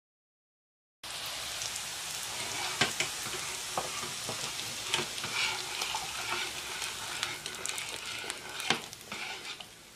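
Hot fried meatballs and onions sizzling as they are scraped from a frying pan into a pot of yogurt soup and stirred with a metal spoon. The sizzle starts about a second in, with a few sharp clicks of the spoon against the metal pans.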